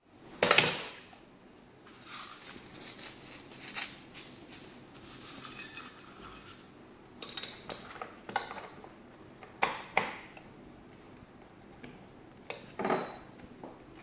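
Stainless-steel parts knocking and scraping against each other as a metal bracket is fitted onto the rim of a steel bowl. There is a loud clank about half a second in, then scattered clinks and scrapes.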